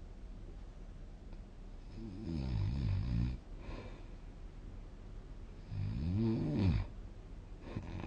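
A person snoring in sleep: two loud, pitched, rattling snores about four seconds apart, each lasting roughly a second, with quieter breathing between them.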